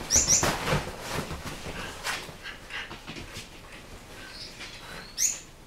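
Dogs playing and tussling over a plush toy on a leather sofa: scuffling and rustling, with two short high squeals right at the start and another rising squeal near the end.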